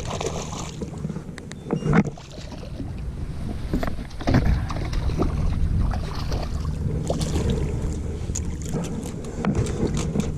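Knocks and handling sounds aboard a fishing skiff over a steady low hum, as a hooked redfish is played and brought to the boat. There are two sharper knocks in the first half, and a scatter of small clicks and splashes later on.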